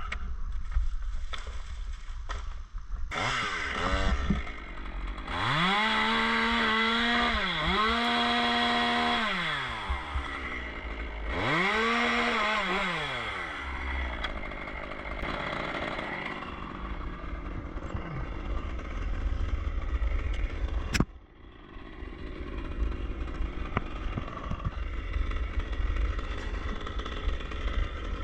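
Chainsaw revved up to full throttle in two long bursts, each falling back toward idle, then running more quietly. A single sharp knock comes about three-quarters of the way through.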